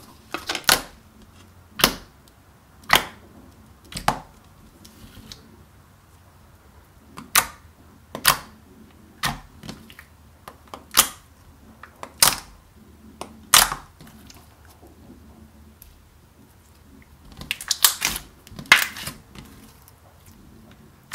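Glossy clear-based slime being poked and squeezed by fingers, giving sharp wet pops and clicks about once a second, with a quiet stretch a few seconds in and a quick run of pops near the end.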